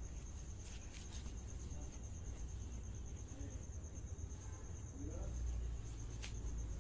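A cricket trilling steadily, a high, evenly pulsing tone over a low steady rumble. Faint scraping of a metal spatula stirring masala and water in an iron wok comes through, with one sharp click near the end.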